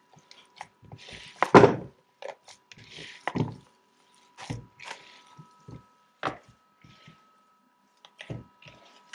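Hands mixing ground sausage and cheese filling in a bowl: irregular squishing with scattered knocks and thumps, the loudest about one and a half seconds in.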